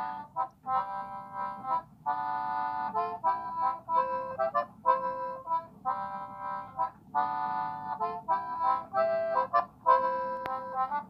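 Background music: an instrumental tune of held chords, played in short phrases of about half a second to a second each.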